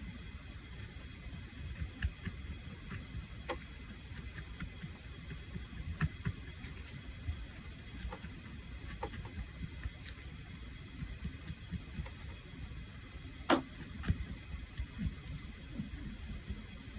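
Scattered light clicks and taps of small nail tools and bottles being handled, over a steady low hum; the sharpest click comes about two-thirds of the way through.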